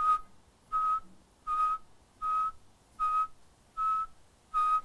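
A person whistling seven short notes on the same pitch, evenly spaced about three-quarters of a second apart.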